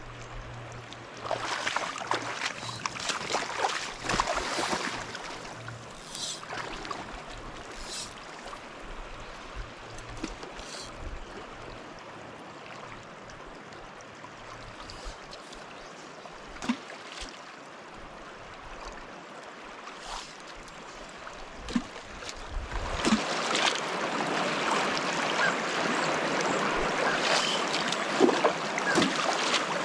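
Fast river current rushing past a gravel bank: a steady wash of water noise that swells louder for a few seconds near the start and again over the last several seconds, with a few brief ticks in the quieter middle.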